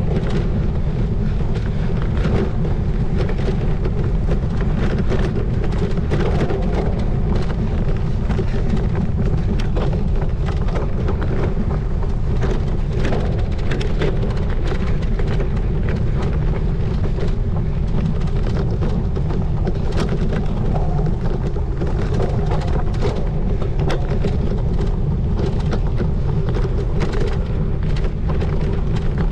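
Wind buffeting the microphone with a steady low rumble while a cyclocross bike is ridden fast over rough ground, with frequent sharp rattles and knocks from the bike and its mount.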